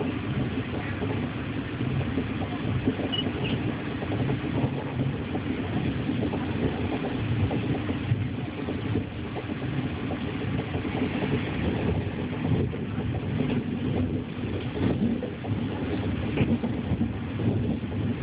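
Steady rumble of a Chinese D-series high-speed electric train, heard from inside the passenger carriage while it runs along the track.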